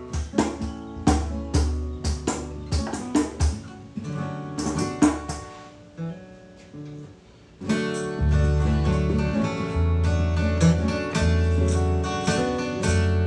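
Acoustic guitar playing: picked notes for the first few seconds, dying away to a few soft notes about halfway, then fuller strumming with low bass notes from about eight seconds in.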